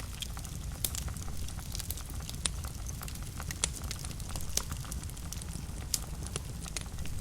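Wood fire in a fireplace crackling, with irregular sharp pops scattered throughout, several louder snaps among them, over a low steady rumble.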